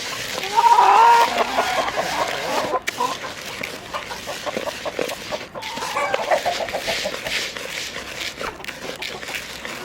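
Chickens clucking and calling, with the loudest call about half a second in and another run of calls around six seconds in.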